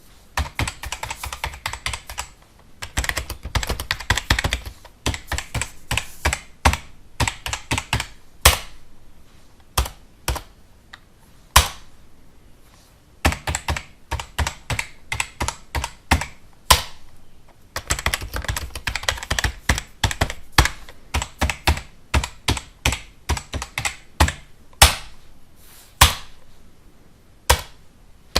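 Typing on a computer keyboard: rapid runs of key clicks with short pauses and scattered single keystrokes between them.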